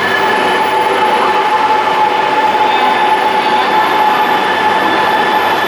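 Shinkansen bullet train pulling into the station platform: a steady rushing noise with a high, steady whine held through it.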